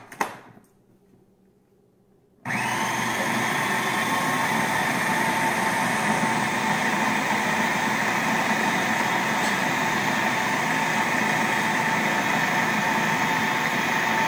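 A click, then about two and a half seconds in a food processor's motor starts abruptly and runs steadily at full speed, grinding soaked chickpeas and fava beans with herbs and onion into falafel mix.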